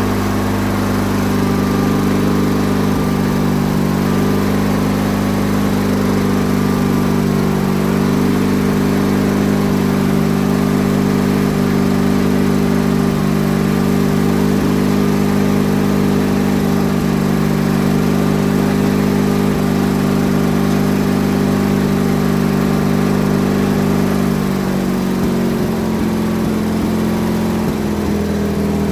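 Engine of a 1997 MTD Yard Machines riding lawn mower running steadily at a constant speed, its note shifting slightly near the end.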